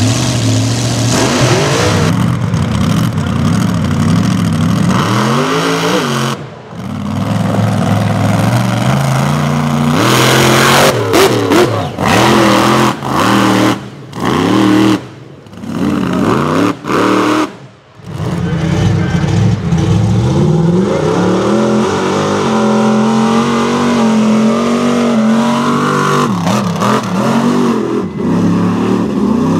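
Mega mud truck engines revving hard at high rpm. The pitch repeatedly climbs and falls as the trucks accelerate through the mud, with a few brief sudden breaks in the sound.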